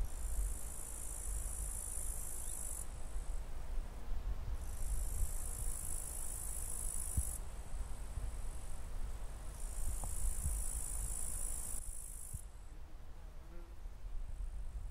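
High-pitched insect buzzing in three bursts of about three seconds each, a couple of seconds apart, over a steady low rumble. The buzzing stops about twelve seconds in.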